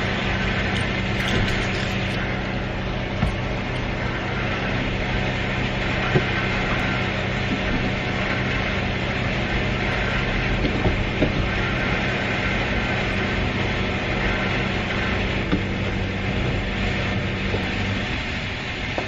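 Car engine idling steadily, with a few light knocks and clicks; the hum stops near the end.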